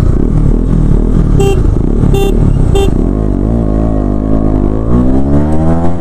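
KTM Duke 250's single-cylinder engine running under way, its pitch wavering and then rising steadily near the end as it accelerates. A horn gives three short beeps between about one and a half and three seconds in.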